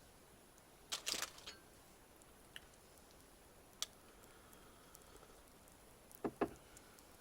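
Wood stove ticking and crackling in a quiet hut: scattered sharp cracks, a quick cluster about a second in, two single ticks, and a double crack near the end.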